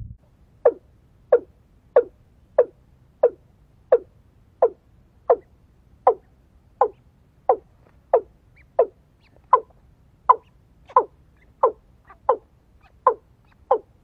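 Watercock calling: a steady series of short, low notes, each sliding downward, about one and a half a second.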